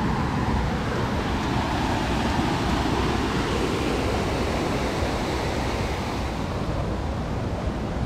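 Steady rush of a shallow stream's water spilling from a small concrete aqueduct channel.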